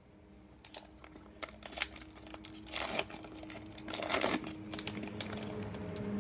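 A trading card pack's plastic wrapper being torn open and crinkled, in irregular crackles and rustles, loudest around three and four seconds in.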